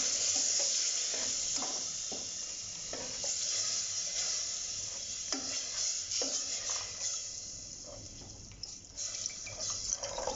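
Water poured into hot, ghee-browned wheat flour in a steel pot, sizzling with a steady hiss, while a steel ladle stirs and scrapes against the pot with frequent clinks. This is the water going into the roasted flour for aate ka sheera.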